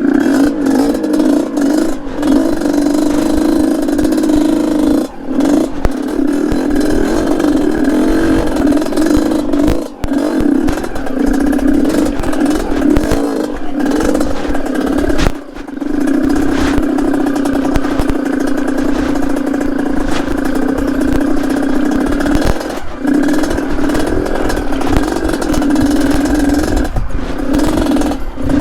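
Yamaha RX-King two-stroke motorcycle engine in a DT trail bike, running under load with the throttle held open. It dips briefly three times as the throttle is eased. Clattering knocks run through it as the bike goes over rocks.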